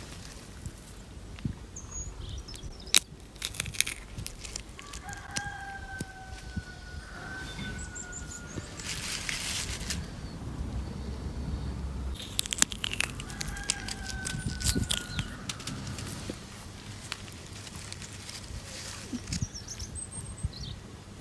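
Fruit being crushed by hand: many sharp cracks, crackles and tearing squelches, with a longer wet squish about halfway through. A rooster crows twice in the background, about a quarter of the way in and again past the middle, and small birds chirp now and then.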